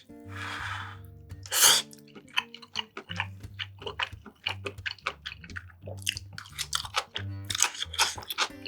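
Close-miked eating: a loud bite a little under two seconds in, then rapid wet chewing clicks and crunching, over quiet background music.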